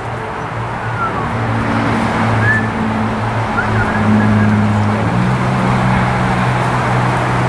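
A car driving along: steady engine hum with road noise, the engine note shifting about five seconds in.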